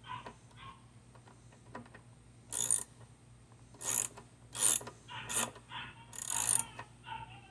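Ratchet wrench clicking in about five short strokes, a bolt being tightened down.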